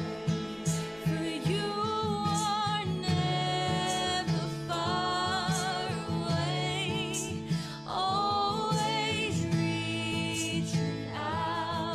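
Background song: a voice singing held notes with vibrato over guitar accompaniment.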